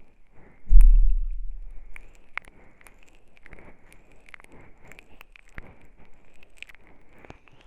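Close-miked handling sounds at a binaural microphone: a heavy low thump under a second in that dies away over about a second, then soft rubbing and small clicks, as fingers rub oil on the temples near the microphone's ears.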